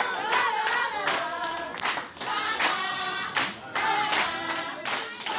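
A group of people singing together, with hands clapping in time.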